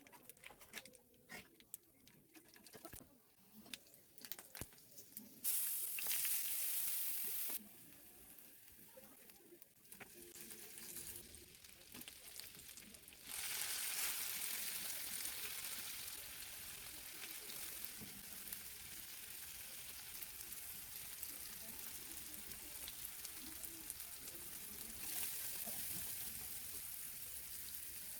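Food frying in oil in a pan. A few clicks and knocks of utensils come first, then a loud burst of sizzling about five seconds in that drops off after two seconds. From about thirteen seconds on the sizzling is steady.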